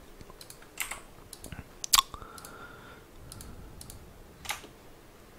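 Computer keyboard keystrokes and mouse clicks, a scattering of separate taps, the sharpest about two seconds in.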